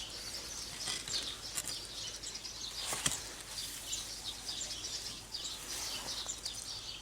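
Small birds chirping over and over, with a single sharp knock about three seconds in.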